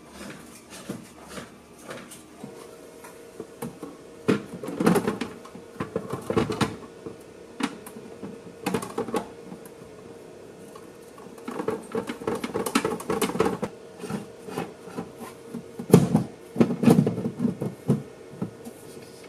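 Handling of a filament dry box: its tinted plastic cover lifted and fitted back and the filament spools inside moved, giving irregular clicks, knocks and rattles with several loud clusters, the loudest about 16 s in. A steady low hum comes in a couple of seconds in and runs under the handling.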